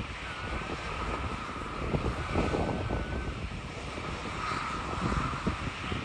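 Jet engines of a Boeing 737-300 (CFM56 turbofans) heard across the airfield, a wavering high-pitched whine over a low rumble, with wind buffeting the microphone.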